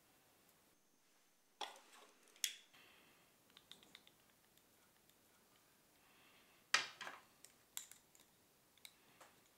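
Fly-tying tools and materials being handled close up: a few sharp clicks and snips, the two loudest about two and a half and seven seconds in, with small faint ticks between.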